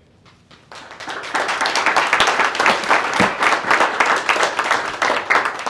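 Applause from a small group of people clapping by hand, starting about a second in after a brief hush and carrying on steadily.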